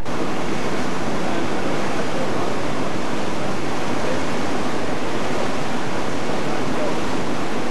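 Loud, steady rushing noise of wind and water from a ferry under way, with nothing standing out from it.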